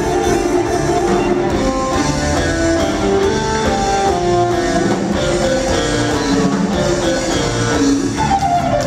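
Live band music led by electric guitars playing a run of held melody notes, with a falling pitch glide near the end.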